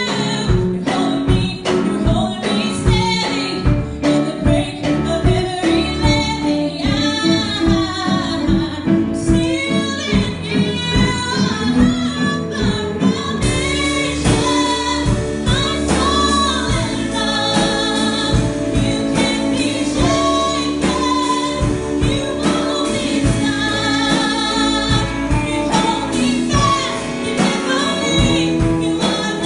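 Worship song: a singing voice over instrumental backing with a steady beat.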